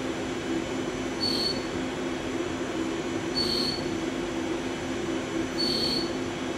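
CNC mill-turn machine milling a hardened 60 HRC steel pin with a live-tooled end mill: a steady machine hum with a short high-pitched squeal that repeats about every two seconds, three times.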